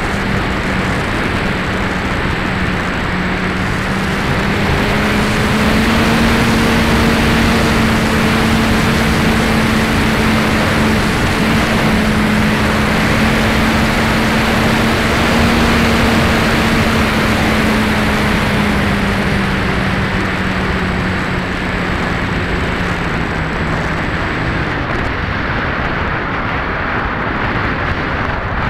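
Electric motor and propeller of a Max-Thrust Lightning 1500 RC powered glider humming over a loud, steady rush of wind on the onboard camera. The motor hum rises slightly about five seconds in, then falls away and stops about three-quarters of the way through, leaving only wind rush once the motor is cut and the folding propeller stops.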